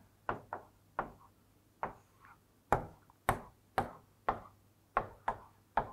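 Stylus tapping and clicking against an interactive display while drawing lines: about a dozen short, sharp taps, irregular and roughly two a second.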